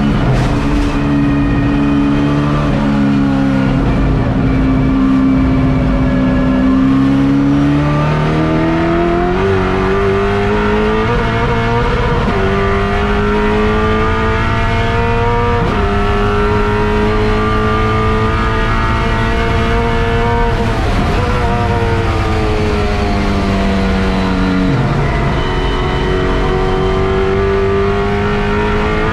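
Touring Car Masters Camaro's V8 engine heard from inside the race car's cabin at racing speed. The engine note climbs under acceleration and drops suddenly in pitch several times at gear changes, falls away about two-thirds of the way through as the driver lifts for a corner, then pulls hard again.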